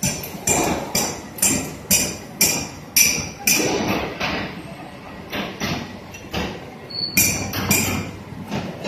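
Sharp, ringing knocks repeating about twice a second, stopping for about a second and a half midway and then resuming.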